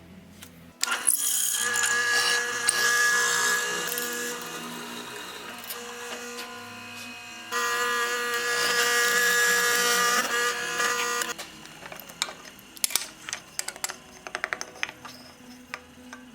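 Electric power tool running under load while cutting into wood, with a steady whine, in two runs; the second stops abruptly. A string of light knocks and clicks follows as the work is handled.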